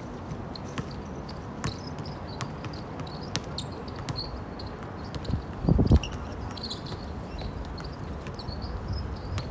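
Basketballs bouncing on an outdoor court: sharp, irregular knocks about once a second, with faint high chirping behind them. A brief low rumble comes about six seconds in and is the loudest sound.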